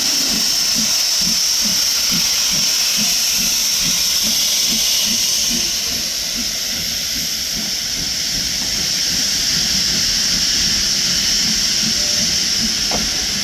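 Steam locomotive letting off steam: a loud, steady hiss over a low, regular throb about twice a second. The hiss eases slightly about six seconds in.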